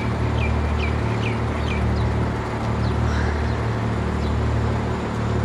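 Steady low rumble of motor vehicle engines, with a bird chirping a quick run of short falling notes in the first two seconds and a few fainter ones about three seconds in.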